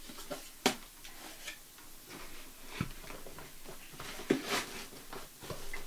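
Cardboard packaging rustling and scraping as a cardboard insert is pulled out of a hard-drive retail box, with a sharp tap less than a second in and another around four seconds in.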